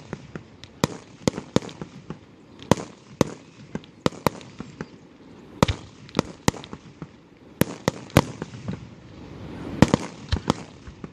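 Aerial fireworks going off in a rapid, irregular string of sharp bangs, with a rumbling background of further bursts between them.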